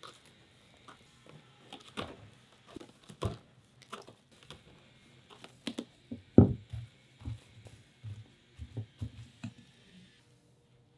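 Kirkland Stretch-Tite plastic food wrap being pulled from its box, torn and stretched over stainless steel mixing bowls, crinkling, with scattered taps and clicks. A heavier thump comes about six seconds in.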